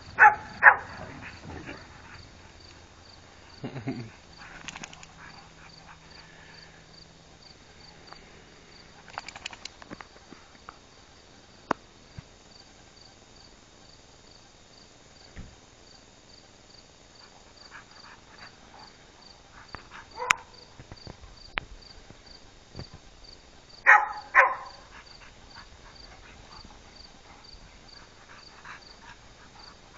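Crickets chirping steadily in the background, about two chirps a second. Over them come a few short, loud vocal sounds: just after the start, at about 4 and 20 seconds, and twice around 24 seconds.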